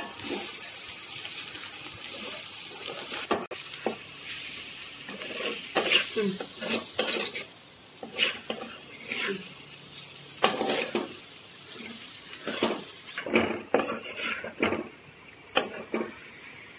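A metal spatula scraping and knocking against a metal kadai in irregular strokes as egg and capsicum poriyal is stir-fried, with a light sizzle underneath.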